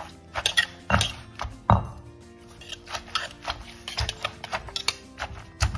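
Irregular clacks and knocks of a pestle and spoon in a mortar as papaya salad is pounded and mixed, over background music.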